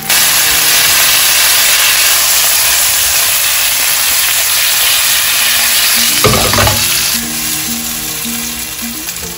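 Whole pearl onions and chili peppers sizzling loudly in a hot frying pan. The sizzle cuts in suddenly at the start and eases off after about seven seconds, with a brief knock about six seconds in.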